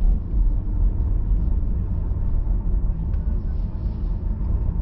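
Car driving on a city street, a steady low rumble of engine and tyre noise heard from inside the cabin.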